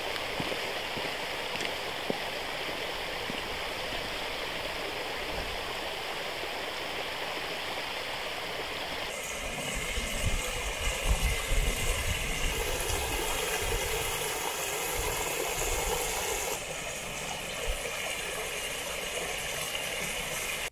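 A stream running steadily. The sound changes abruptly about 9, 12 and 17 seconds in, as between separate takes, with heavier low rumbles around 10 to 13 seconds.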